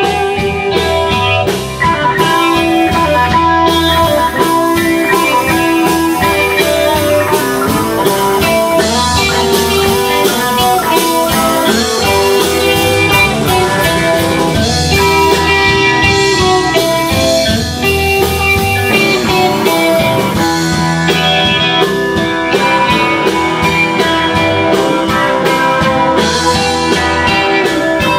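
Live blues band playing loud and steady on two electric guitars, electric bass and drum kit.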